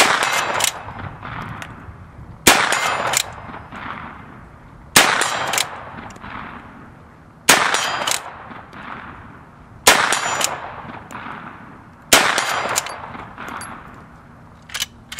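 Cimarron 1876 Winchester replica lever-action rifle in .45-60 firing six black-powder-substitute cartridges, one shot about every two and a half seconds. Each shot is followed by the metallic clack of the lever being worked to eject the spent case and chamber the next round.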